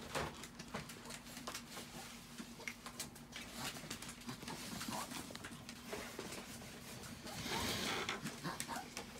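Chihuahuas' claws pattering and ticking on a sheet-covered floor as the dogs move about, with a louder rustle of the sheet about seven and a half seconds in.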